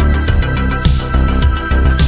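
Electronic background music with a steady beat and sustained synth tones.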